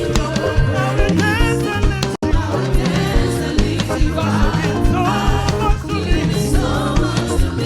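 Upbeat dance-rhythm praise band music with drum kit and melodic lines. The sound cuts out for an instant about two seconds in.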